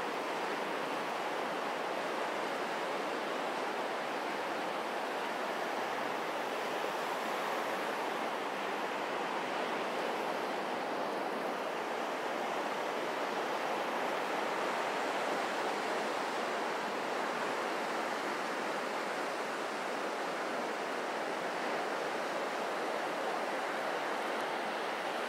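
Atlantic surf breaking along a beach: a steady, continuous rushing wash of waves with no separate crashes standing out.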